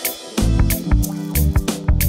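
Instrumental music with a steady drum beat.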